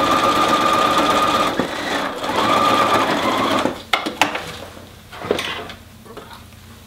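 Bernina Activa sewing machine running at speed, edge stitching through vinyl-laminated cotton with a regular presser foot. It dips briefly about two seconds in, runs again, and stops just before four seconds. A few sharp clicks follow as the work is handled.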